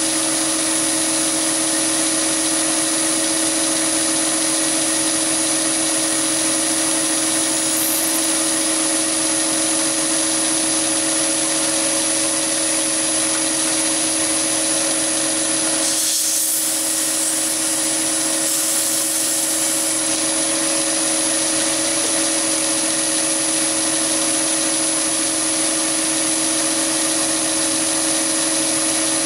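Chinese mini lathe running at a steady speed with a constant whine while a small solid carbide boring bar cuts a bore in 316 stainless steel. The sound changes briefly a little past halfway, then steadies again.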